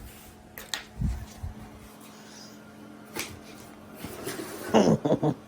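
A few light knocks and a low thump, as of objects being handled, then a louder cluster of short knocks and rustles near the end.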